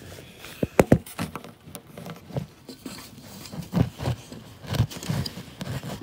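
Handling noise: a string of irregular knocks, taps and rustles as the camera and tools are handled against the wooden 2x4, with a sharp pair of knocks about a second in.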